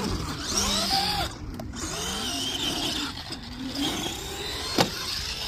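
Arrma Gorgon RC truck's brushed electric motor and gears whining, rising and falling in pitch as it speeds up and slows, with a sharp knock near the end. The whine is that of a pinion-to-spur gear mesh that the owner judges too tight.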